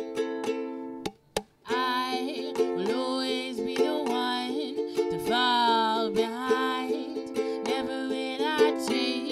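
A woman singing while strumming a ukulele. The music drops out briefly about a second in, then the strummed chords and her voice resume.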